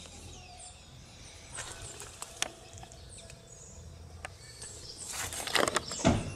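Quiet outdoor ambience with faint, scattered bird chirps and a few soft clicks; a rustling of handling or footsteps builds near the end.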